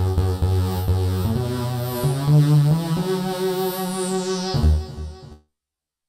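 Novation MiniNova synthesizer playing a layered preset: held bass notes under chords that change about once a second, with falling high-pitched sweeps on top. The last note dies away about five seconds in.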